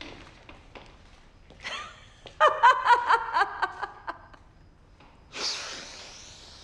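A woman laughing loudly: a burst of rapid ha-ha pulses starting about two seconds in and lasting about two seconds. Near the end comes a long, breathy rush of breath.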